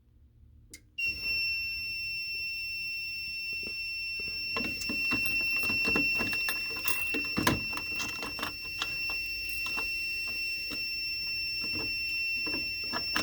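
Simplex fire alarm system going into alarm: a steady, high-pitched electronic alarm tone comes on suddenly about a second in and holds, with irregular clicks and knocks beneath it. It sounds even though the panel is showing a NAC circuit fault.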